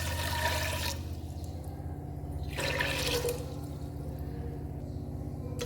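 Water splashing in two short bursts, once at the start and again about two and a half seconds in, over a steady low hum.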